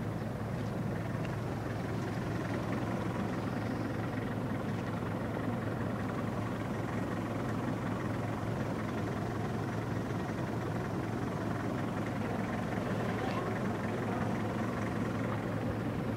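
Car engine and tyre noise heard from inside the cabin as the vehicle drives along a road: a steady, even drone.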